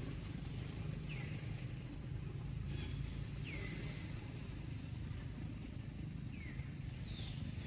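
Short high animal calls, each sliding down in pitch and then levelling off, about four times, over a steady low rumble.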